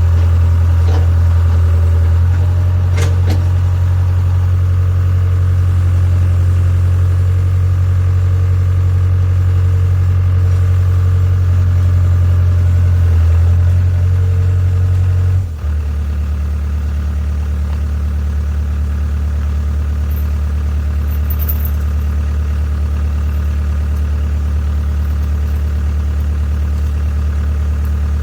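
Hitachi EX60 excavator's diesel engine running steadily while the boom hydraulics drag the track off the idler wheel. About halfway through, the hum abruptly changes to a slightly lower, steadier tone.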